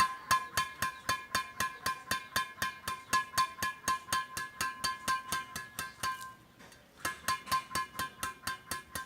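Strings of a Victor HyperNano X30 badminton racket, strung with VS-850 at 26 lbs, struck in a quick even rhythm of about four a second. Each hit gives a short ringing ping. The hits pause about six seconds in and start again about a second later.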